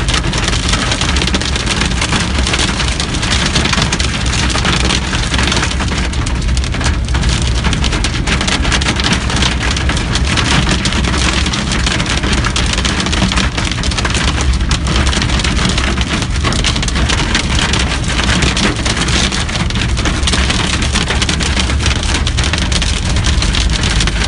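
Hail and heavy rain pelting a car's roof and windshield, heard from inside the cabin: a loud, steady, dense clatter of many small hits over a low rumble from the moving car.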